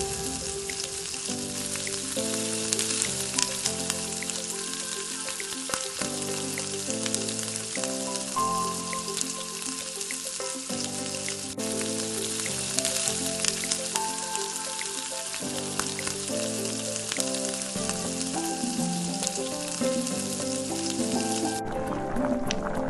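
Chicken and oil frying in a pan: a steady sizzle with fine crackles, which drops away a little before the end.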